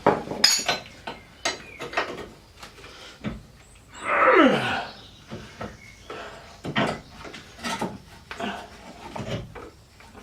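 Scattered metal knocks and clunks of a hammer and tools working a rusty suspension bolt loose on a car's underside, thickest near the start. About four seconds in, a louder sound slides down in pitch.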